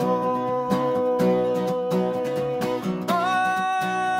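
Voices holding a long sung "oh" over a strummed acoustic guitar in a vocal warm-up, moving up to a higher held note about three seconds in.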